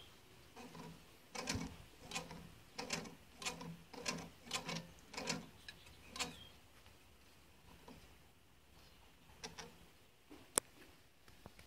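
The belt drive of a homemade CNC machine's axis, a large steel pulley and a toothed timing pulley, is rocked back and forth by hand to check for play. It gives a run of short clicking knocks about twice a second, then a few fainter ones and one sharp click near the end.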